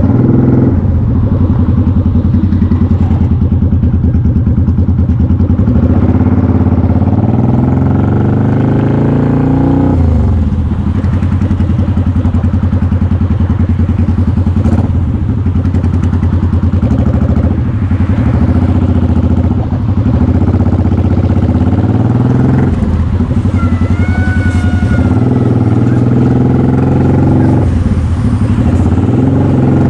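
Motorcycle engine running under way at highway speed, heard from the rider's seat. Its pitch climbs as the bike accelerates and drops back at each brief easing of the throttle or gear change.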